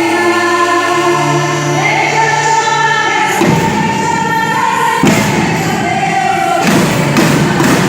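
Gospel music: voices sing long held notes, then a percussion band's drums come in about three and a half seconds in and keep playing under the singing.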